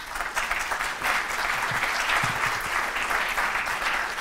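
Audience applauding, a steady dense clapping that starts as the talk ends.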